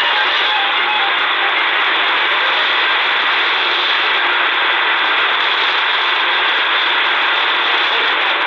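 Steady shortwave static from a C.Crane Skywave portable radio tuned to 5800 kHz. The pirate station's weak signal is buried in the noise, and speech comes back through it just after.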